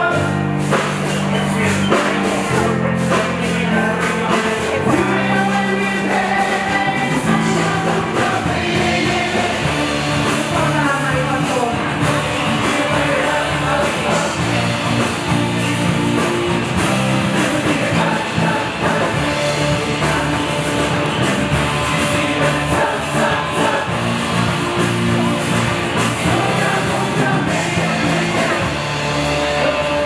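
Pop song with several voices singing over a backing track with a steady bass line, played loud through the stage PA during a live sound check.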